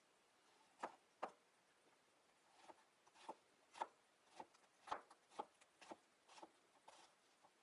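Chef's knife cutting cucumber into thin strips on a cutting board: about a dozen quiet, uneven knife strokes, each a sharp tap of the blade on the board.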